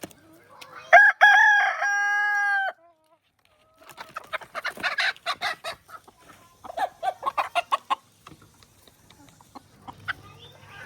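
A rooster crows once about a second in, a loud drawn-out call that cuts off sharply, followed by chickens clucking in two quick runs of short calls.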